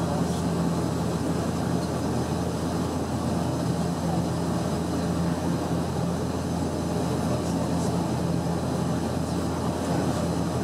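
Cabin noise inside a Bombardier Dash 8-400 turboprop airliner in flight: the steady drone of its Pratt & Whitney PW150A engines and six-bladed propellers, a low hum over a constant rush of air.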